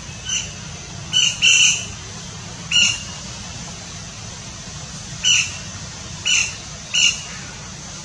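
Flameback woodpeckers giving short, sharp calls, seven in all, some in quick pairs and others a second or more apart. A steady low rumble of background noise runs underneath.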